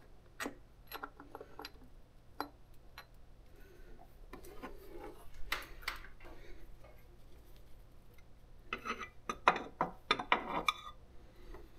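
Scattered light metallic clicks and clinks from valve cover bolts being unscrewed by hand and the valve cover being worked loose on a GY6 clone scooter engine. There is a quick run of sharper clicks near the end.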